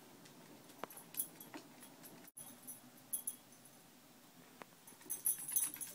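A Yorkshire terrier's claws clicking on a hardwood floor and its ID tag jingling as it moves about: scattered faint clicks and taps, with a cluster of light jingling ticks near the end.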